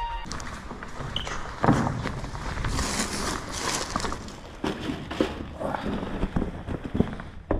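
Rustling and irregular thumps as an insulated food-delivery backpack is handled and a paper takeaway bag is taken out of it.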